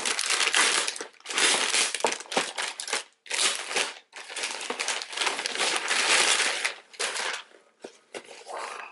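Grey plastic poly mailer bag crinkling and rustling as it is pulled open and a shoebox is slid out. It comes in several long, noisy stretches with short breaks and dies down near the end.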